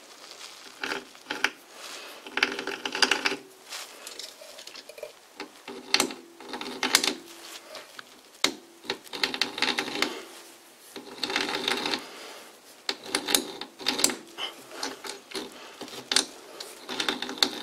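A small hand tool scraping and clicking against the edge of a metal workpiece's threaded bore while the lathe chuck is turned by hand, to knock down high spots and tool marks. It comes in irregular bursts of about a second each, with sharp clicks between them.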